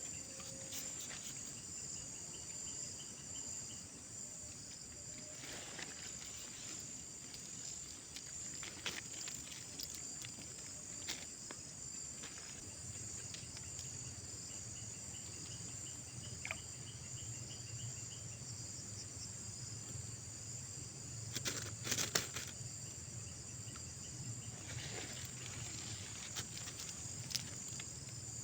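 Steady, high-pitched chorus of crickets and other insects, with a few short clicks and rustles scattered through it.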